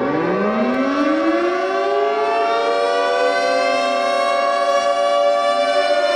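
Civil defense warning siren winding up: several tones rise together in pitch over the first two or three seconds, then hold a steady, loud chord.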